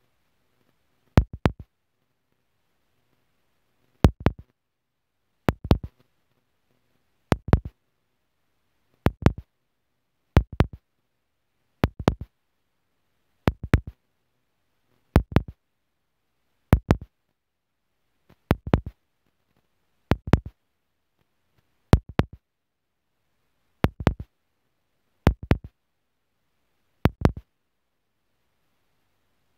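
Aerial fireworks shells bursting: a sharp bang about every one and a half to two seconds, each followed by two or three quick echoes, with near silence in between.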